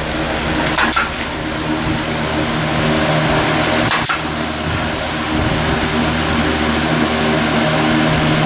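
Large metal drum fan running with a steady whirr and low hum, with two brief knocks, one about a second in and one about four seconds in.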